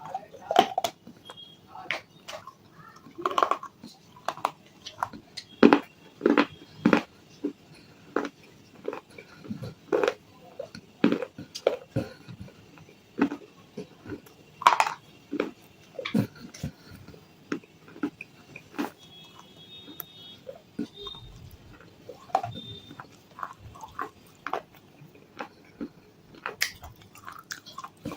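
A person biting and crunching baked clay: an earthen cup and clay lamps coated with red chalk paste. Sharp, irregular crunches come one or two a second, with quieter chewing between them.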